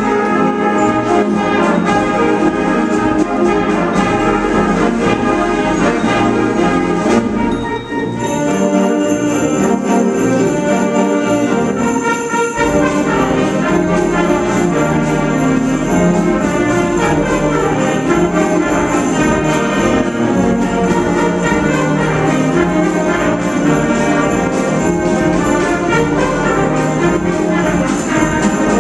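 School band playing a big-band-style Christmas arrangement, led by brass (trumpets and trombones), with jingle bells joining about eight seconds in and ringing on steadily.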